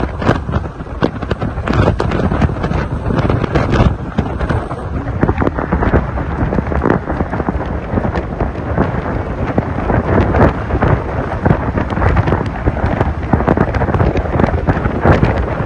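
Wind buffeting a microphone on a moving vehicle: a loud, continuous rumbling rush full of crackles and pops.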